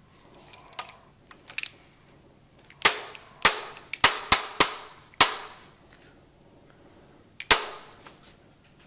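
A fiberglass tool striking the base of an M60 machine gun's rear sight, driving the sight sideways into its seat on the trunnion. A few light taps come first, then seven sharp strikes, five of them in quick succession and the last after a pause, each with a short ringing tail.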